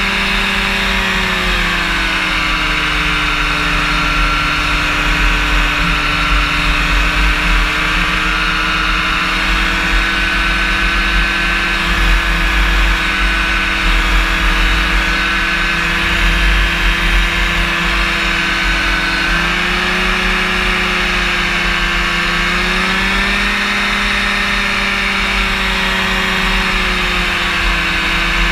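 Rotax engine and propeller of a powered parachute running steadily in flight. The engine note drops a little about a second in and rises again about two-thirds of the way through as the throttle is eased and opened.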